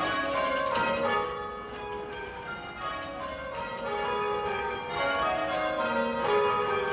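Church tower bells rung full circle by ringers on ropes, ringing rounds in the English change-ringing style. The bells strike one after another in a steady sequence, each one ringing on and overlapping the next.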